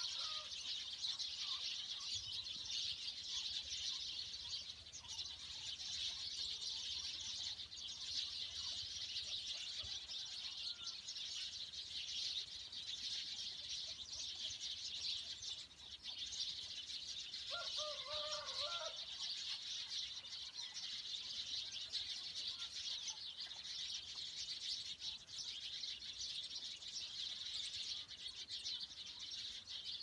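A dense, continuous chorus of many small birds chirping in trees. A little past halfway comes one short, lower call from another bird.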